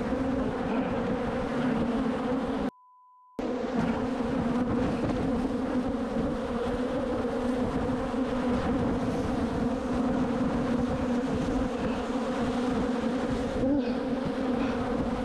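A dense cloud of honey bees from a disturbed, opened hive buzzing close around the microphone: a steady loud hum. About three seconds in the buzz cuts out for under a second, replaced by a faint beep.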